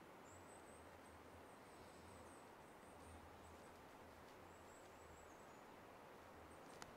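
Near silence: faint outdoor ambience, a steady soft hiss, with one small click near the end.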